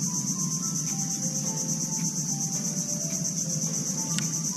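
Steady high-pitched chorus of insects, finely pulsing without a break, with one short click near the end.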